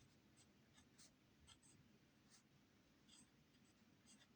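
Near silence with faint, scattered short scratches of handwriting strokes.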